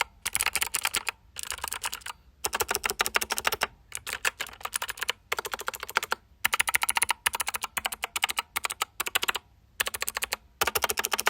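Typing on a 61-key mechanical keyboard with Gateron Blue clicky switches: quick runs of sharp clicks broken by short pauses.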